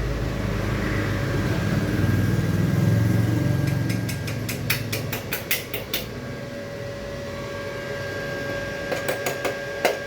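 Mini stick welder: a low electrical hum that builds over the first few seconds, then a quick run of sharp snaps about halfway through and a few more near the end as the electrode is struck on the metal.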